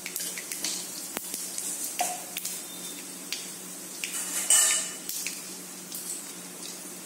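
Fenugreek and black mustard seeds sizzling in hot oil in a steel kadai, with scattered sharp pops and clicks as the seeds crackle, and a louder burst about four and a half seconds in. A steady low hum underneath.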